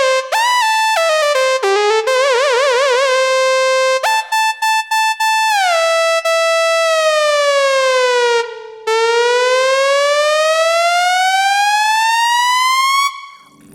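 Hammond SK Pro monophonic synth lead playing a single bright note line that slides between notes. About two seconds in it has a fast, wide vibrato, then a long slow downward glide and a long upward glide that cuts off about a second before the end.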